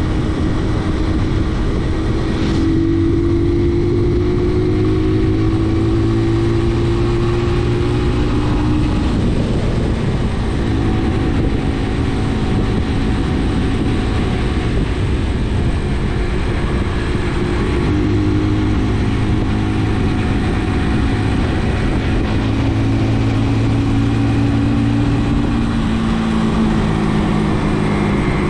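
Brixton motorcycle engine running while riding, its pitch rising slowly under throttle twice, with a steady rush of wind noise. There is a brief tick about two and a half seconds in.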